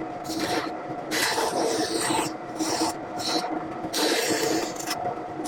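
Wood being worked by hand with an abrasive tool, in repeated back-and-forth scraping strokes about once a second.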